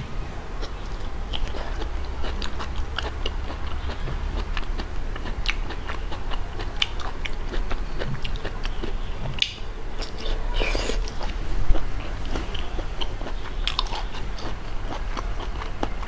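A person biting and chewing seafood close to the microphone: a run of small, crisp crunches and wet clicks, with one louder crunch about twelve seconds in, over a low steady hum.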